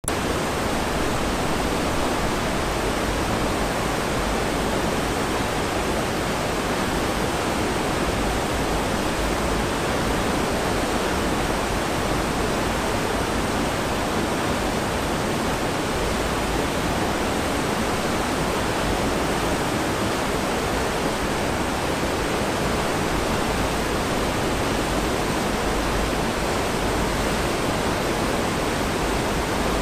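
Steady rush of foaming white water in the wake of the cruise ship Allure of the Seas, churned up by its azipod propulsion units.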